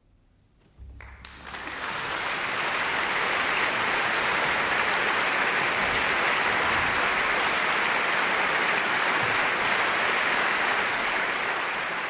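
Audience applause starting about a second in and building within a second to steady clapping.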